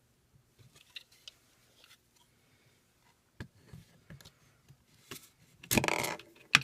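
A punch working the trigger pin out of a Glock frame while the slide stop is wiggled: light metallic clicks and small scrapes. A louder rasping scrape comes near the end, then one sharp click.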